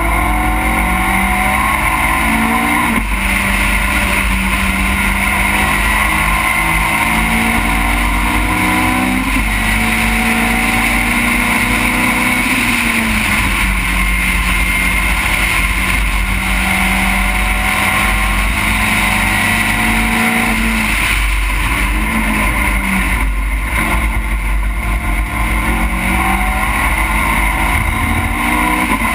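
Caterham race car's engine heard onboard at full race pace: the note climbs and drops at an upshift about three seconds in, then holds steady for a long stretch at speed. About two-thirds through it falls away and blips through downshifts under braking, then pulls up again near the end, over a constant rush of wind noise.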